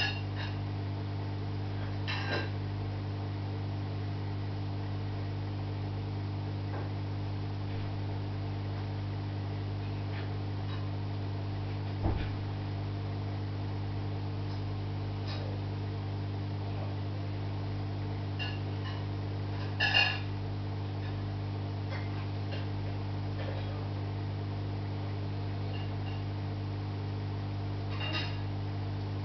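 Steady low electrical hum of aquarium equipment, with a few faint clicks and a low knock about twelve seconds in and a sharper click about twenty seconds in.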